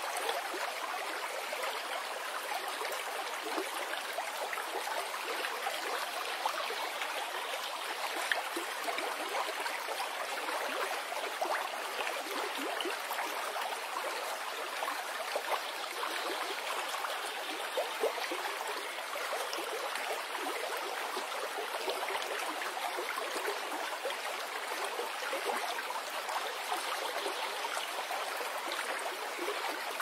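Gentle forest stream flowing steadily: an even rush of running water with small irregular splashes and gurgles.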